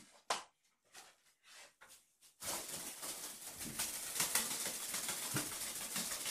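A few scattered light taps, then, a couple of seconds in, dense rustling and crackling for about four seconds, like crinkly material being handled or played with.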